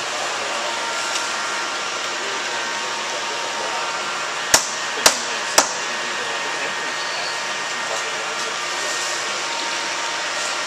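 Three sharp taps about half a second apart: a soft-faced mallet striking a workpiece clamped in a milling machine vise, tapping it down. Under them runs the steady hum and whir of shop machinery.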